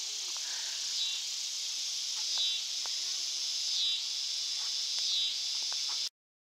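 Evening insect chorus of crickets and katydids: a steady high buzzing, with a louder pulsed call repeating about every second and a half. The sound cuts off suddenly about six seconds in.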